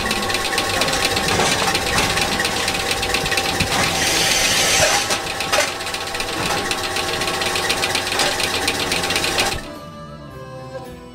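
Goat milking machine running: the vacuum pump and pulsators give a fast, even mechanical clatter. It stops suddenly near the end, leaving soft music.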